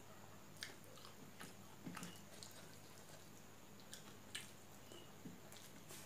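Faint eating sounds: a person chewing, with scattered soft clicks and smacks, and fingers squishing dal and rice against a steel plate.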